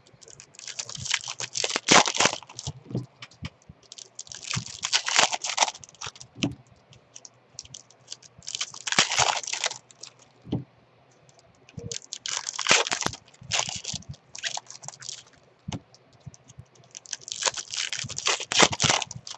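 Foil wrappers of trading-card packs being torn open and crinkled, in five crackling bursts of a second or two each with short pauses between.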